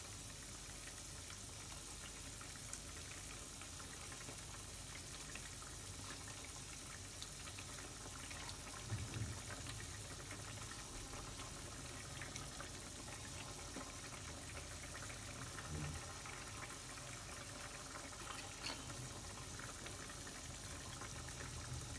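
Gravy simmering in a steel kadhai over a gas flame: a quiet, steady bubbling hiss. A few soft plops and knocks come as lumps of gram-flour pakora batter are dropped into it by hand.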